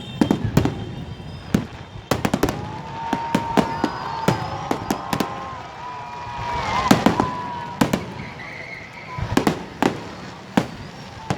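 Aerial fireworks going off in many sharp, irregular bangs, with whistling tones and a burst of crackling through the middle.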